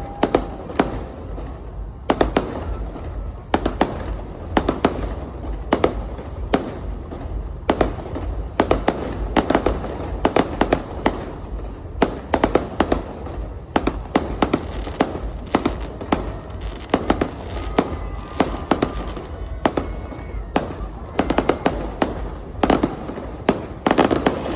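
Aerial fireworks going off in a continuous barrage: clusters of sharp bangs and crackles every second or so, over a constant low rumble.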